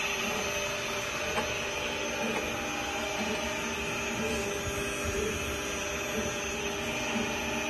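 Lab-scale sigma-blade mixer and its screw extrusion discharge running steadily at maximum speed: an even motor hum and whine with several constant tones.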